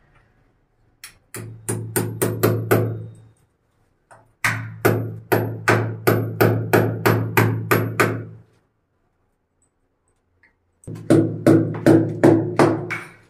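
Hammer striking a chisel to chip plaster and brick out of a wall around a pipe fitting. The ringing blows come in three quick runs, about three a second, with short pauses between.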